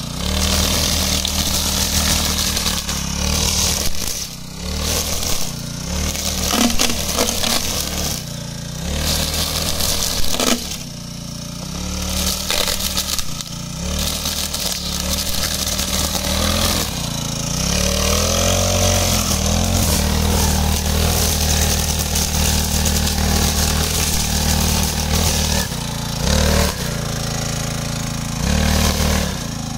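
GT Shakti wheel-type brush cutter's small four-stroke engine running at high speed while its spinning cutting head trims grass. The engine note dips and recovers several times under the cutting load, and a little past halfway it wavers up and down in pitch.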